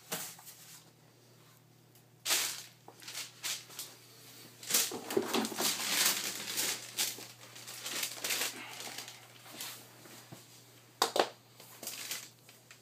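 Cardboard crinkling and shuffling as cabinet parts are moved around on it, in irregular bursts with a few sharper knocks.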